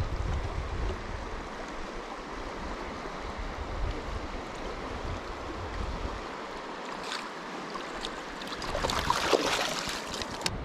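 Fast, shallow river current rushing steadily over riffles, with a louder burst of splashing at the water's surface near the end.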